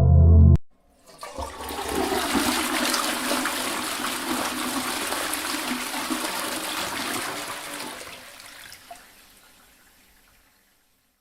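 Rushing water that starts suddenly about a second in, stays loud, then dies away over the last few seconds.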